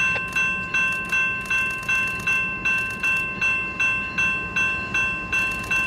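Railroad grade crossing bell ringing steadily at about two strikes a second, warning of an approaching train.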